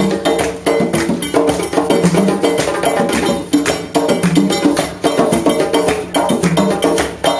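Live djembe hand-drum ensemble playing a fast, steady rhythm of dense strikes, with a sharp, bright part cutting through on top.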